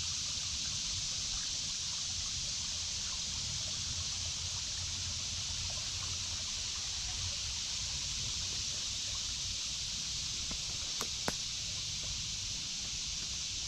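Woodland creek ambience: a steady high-pitched insect drone of cicadas over a trickling creek, with two sharp clicks about 11 seconds in.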